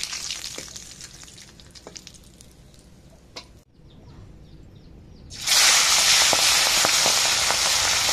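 Hot oil in a metal kadhai, first a faint sizzle with a few ladle clicks. About five and a half seconds in, food goes into the oil and a loud, steady sizzle starts suddenly.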